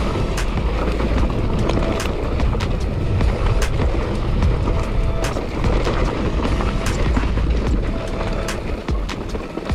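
Mountain bike rolling fast downhill over rocky, gravelly dirt trail: tyres crunching over stones, with frequent sharp clicks and rattles from the bike, and a heavy low rumble of wind buffeting the handlebar-mounted microphone.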